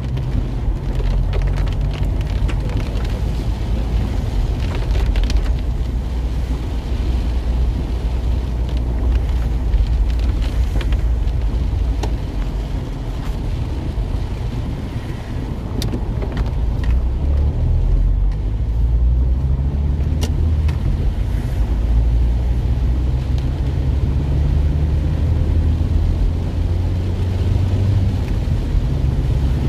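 Cabin sound of a car driving on wet streets in the rain: a steady low rumble of engine and tyres, rain hitting the windshield, and a few scattered sharp ticks.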